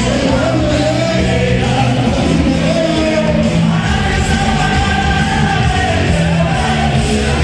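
Cumbia music with a singing voice over a steady bass line.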